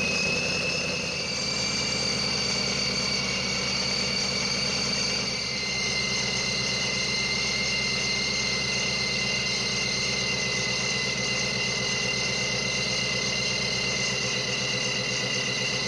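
Supercharged Gen 3 Coyote 5.0 V8 idling after its first startup, with the high whine of the Vortech V3 JT-trim centrifugal supercharger's Heritage gears over the engine's steady idle. The whine steps slightly lower in pitch twice, about a second and a half in and again about five and a half seconds in.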